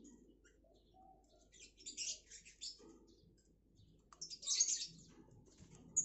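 A caged shrike (cendet) at its pellet-feed cup: two short bursts of rapid, high, rasping clicks, about two seconds in and again near five seconds.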